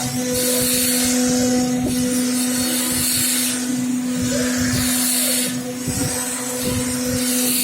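Double-head CNC router running, its spindle giving a steady whine while the cutter works the material in four separate passes of high-pitched hissing, each about a second long.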